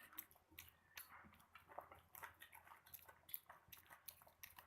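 Faint chewing and eating of roast chicken, with scattered small wet clicks and crunches close to the microphone.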